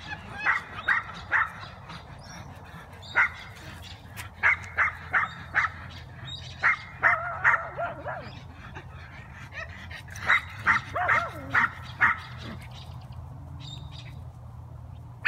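A small dog barking in quick clusters of two to four sharp barks with short gaps between, falling quiet for the last few seconds. A low steady rumble runs underneath.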